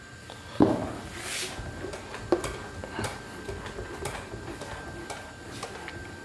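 A duster rubbing across a whiteboard as the board is wiped clean, with small clicks and scrapes. There is a dull thump about half a second in and a sharper knock a little after two seconds, over a faint steady high tone.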